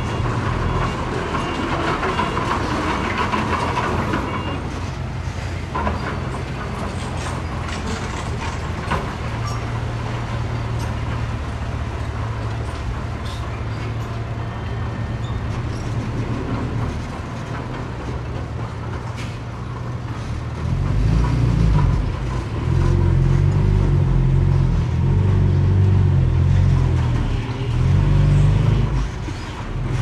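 Diesel engine of heavy earthmoving machinery running steadily, then working harder in several loud surges in the last third, with scattered clicks and clatter.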